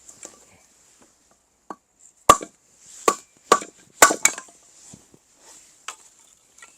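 Firewood being split with an axe: a quick series of sharp chopping blows and cracks of wood, five loud ones close together in the middle, with a few lighter knocks around them.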